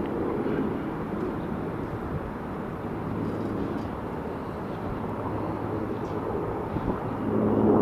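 Mi-8 helicopter running, a steady mix of turbine and rotor noise with a low hum that swells louder near the end.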